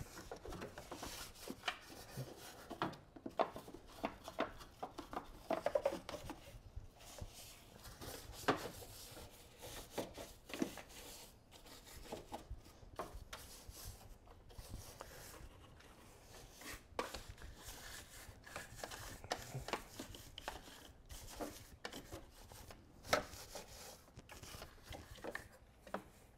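A detail brush scrubbing around plastic covers, hoses and parts in a car's engine bay: quiet, irregular scratching strokes with light taps as the brush bumps the parts.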